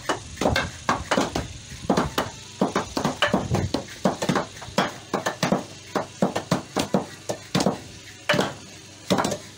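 Several wooden mallets pounding fibrous plant stems against the ground in uneven, overlapping thuds, about three a second, beating the stems into fibre for a traditional local sponge.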